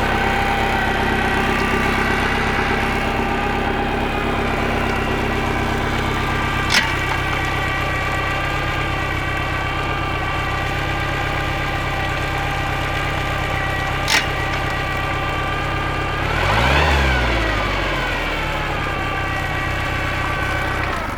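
Bayliner boat's inboard engine idling steadily, running properly now that its distributor timing, which had been 180 degrees out, is corrected. Two sharp clicks come several seconds apart, the engine is briefly revved up and back down about three quarters of the way through, and it shuts off at the end.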